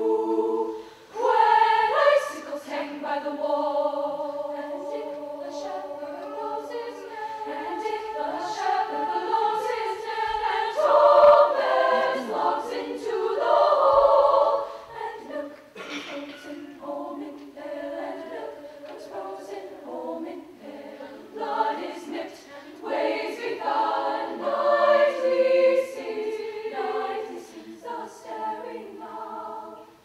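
Women's choir singing in several parts, holding chords, with a short break about a second in and a louder swell around the middle.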